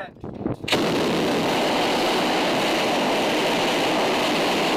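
Rocket engine on a static fire test stand igniting suddenly less than a second in, then firing with a loud, steady, even noise.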